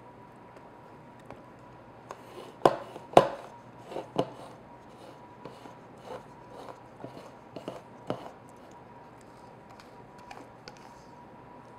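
A rubber spatula scraping and knocking against a stainless-steel mixing bowl as batter is scraped out into a metal tube pan: a run of irregular taps and scrapes, the loudest a close pair about two and a half to three seconds in, dying away after about eight seconds.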